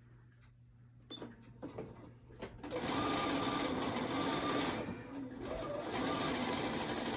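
Bernina sewing machine sewing binding through a binder attachment: a few light clicks, then the machine starts about two and a half seconds in and stitches steadily, easing off briefly around five seconds before picking up again.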